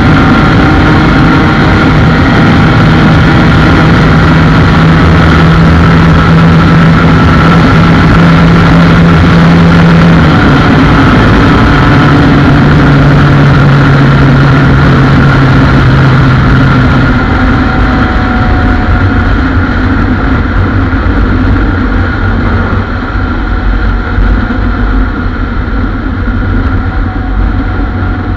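Two-stroke single-cylinder engine of a Yamaha TZR150 fitted with a TZM150 block, running hard at high revs under full throttle with wind rushing past. Its pitch shifts about ten seconds in and again a little later, then it eases off and gets quieter after about seventeen seconds.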